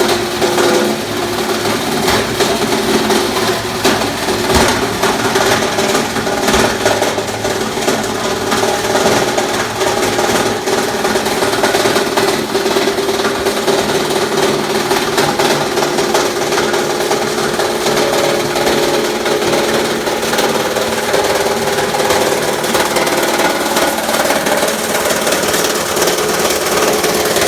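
Nelmor plastic granulator running, its two-blade rotor chopping plastic bottles: a steady machine hum under constant irregular clattering and crackling of plastic being cut.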